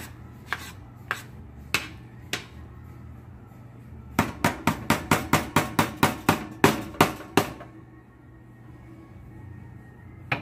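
Spoon knocking against the sides of a metal roasting pan while chicken dressing is stirred in it: about two knocks a second at first, then a quicker run of about a dozen knocks lasting three seconds. Under them runs a steady low hum.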